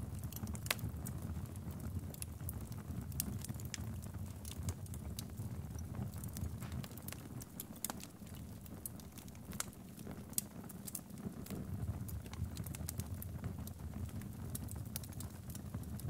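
Wood fire burning in a fireplace: many irregular sharp crackles and pops from the burning logs over a steady low rush of the flames.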